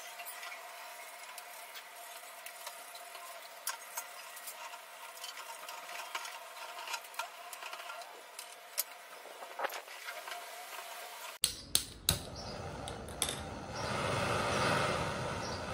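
Light scattered clicks and rubbing, then three sharp clicks about eleven seconds in, followed by a handheld butane blow torch on a gas canister burning with a steady rushing hiss.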